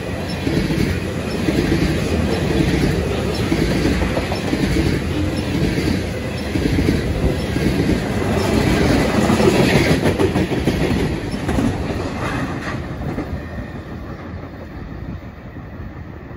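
Freight train of loaded crude oil tank cars rolling past close by, steel wheels clicking over the rail joints under a dense rumble. The sound fades away over the last few seconds as the cars pass and recede.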